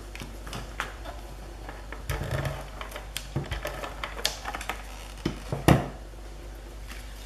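Scattered light clicks, taps and knocks of paper scraps and crafting tools being handled and set down on a wooden desktop, with the loudest knock about five and a half seconds in.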